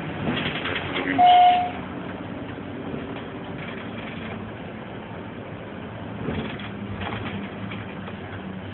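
Bus engine running steadily as the bus drives along, with the cabin rattling now and then. About a second in, a short, loud, single-pitch electronic beep sounds for about half a second.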